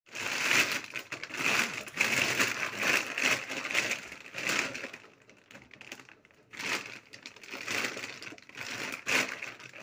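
A large white plastic sack being opened out and handled, its sheet crinkling and rustling in irregular bursts, with a short lull about halfway through.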